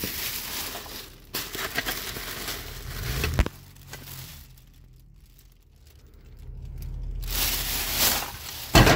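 Black plastic bin bags and crumpled paper crinkling and rustling as hands push them aside, in two stretches with a quieter pause between, and a single loud knock near the end.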